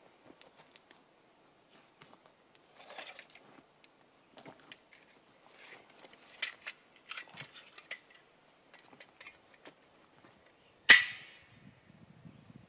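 Scattered light clicks and short rustles of hands handling gear or wood, with one sharp, loud knock about eleven seconds in.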